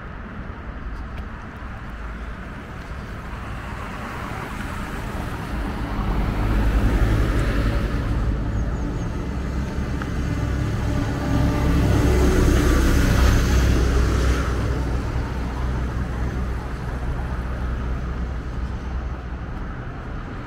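Road traffic: motor vehicles passing close by on a street, swelling up and fading away, once about a third of the way in and more loudly just past halfway.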